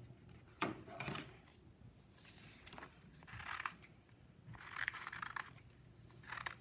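Scissors cutting colored paper: a handful of short snips and paper rustles, faint.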